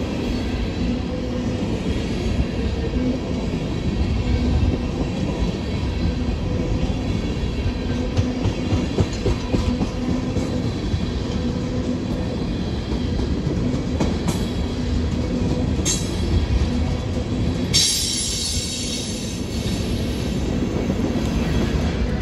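Loaded freight train of tank cars and a covered hopper rolling past close by: a steady rumble and clatter of steel wheels on the rails, with a few sharp clanks. About three-quarters of the way through comes a brief high screech of wheels on the rail.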